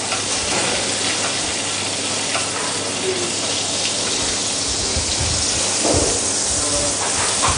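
Sea bass fillet frying in hot olive oil in a pan, with butter just added, giving a steady sizzle.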